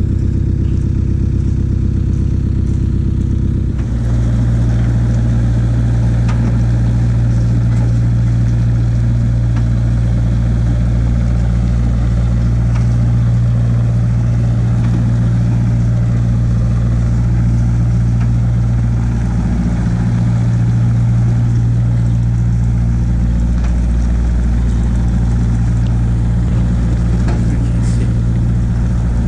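Large old diesel truck engine running steadily, its note changing about four seconds in.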